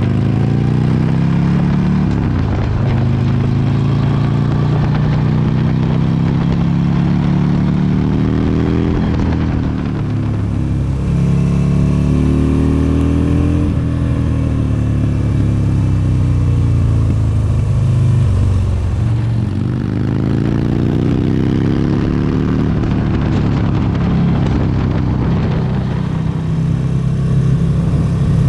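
Motorcycle engine running on the move, its revs climbing and dropping again and again as the rider accelerates and eases off through the bends.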